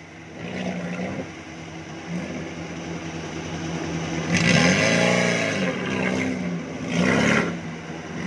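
Small 4x4's engine running as it wades through deep muddy floodwater, revving up and down twice, about halfway through and again near the end, with water rushing and splashing around the wheels.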